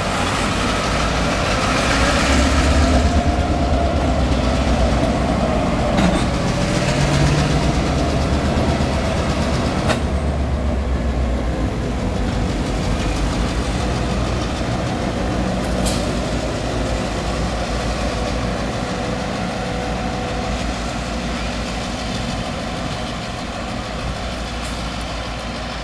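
Diesel locomotives, including an EMD GP38-2, running slowly past at close range. The engine rumble is loudest a few seconds in and then slowly fades, with a few sharp clanks.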